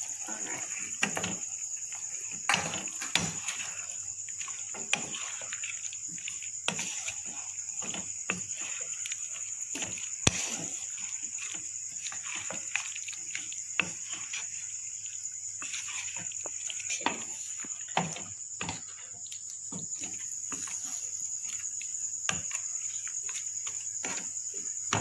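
Chicken pieces in thick simmering sauce in a non-stick wok, stirred with a wooden spatula: wet sloshing and bubbling with irregular knocks of the spatula against the pan. A steady high-pitched whine runs underneath.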